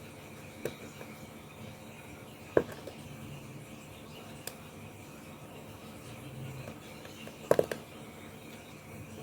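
Tiny plastic building blocks being pressed together, giving a few sharp, separate clicks: a loud one about two and a half seconds in and a quick cluster of two or three near the end, over faint room hiss.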